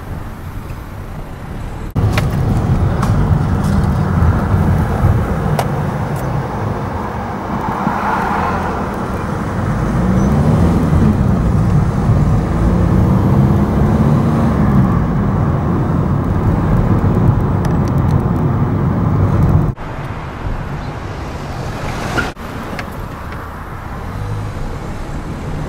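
Car driving along a road, heard from inside the cabin: steady engine and tyre noise, the engine note rising and falling in pitch midway. The sound jumps abruptly in level a few times.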